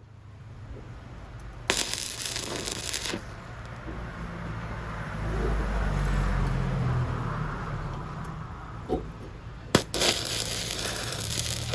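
Stick-welding arc from a 6013 electrode crackling and sizzling on thin steel in two loud spells, one about two seconds in and another near the end, over a steady low hum.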